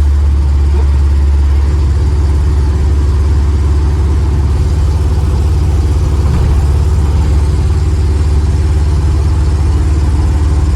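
Old vehicle's engine running steadily under way, a loud, even low drone with no change in pace.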